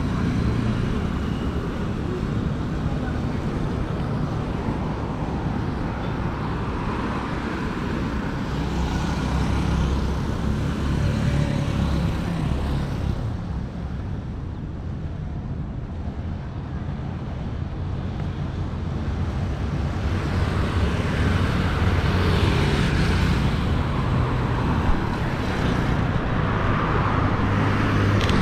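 City road traffic: a steady rumble of passing cars and other vehicles, growing louder about a third of the way in and again in the last third as vehicles go by close.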